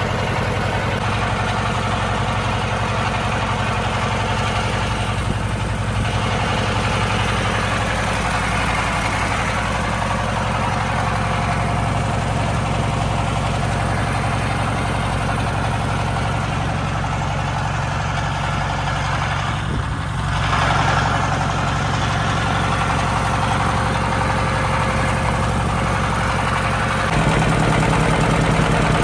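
Small fishing trawler's engine running steadily while the boat is under way, with a constant hiss of water and air over it. The engine note gets slightly louder about two-thirds of the way in and changes pitch near the end.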